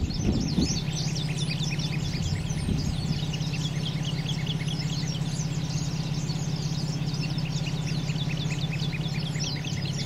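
Many small birds chirping and calling at once, a dense, continuous chorus of short high notes, over a steady low hum.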